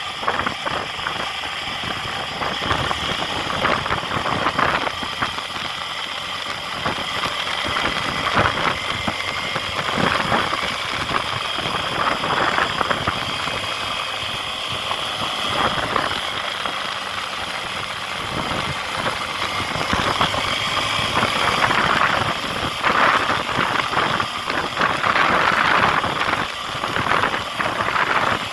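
A motor vehicle's engine running steadily at low speed, with rattling and road noise.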